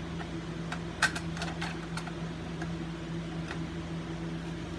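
Light clicks and taps of a plastic Wheelock AS24110W horn/strobe being handled, the sharpest about a second in, over a steady low hum. The device itself is not sounding.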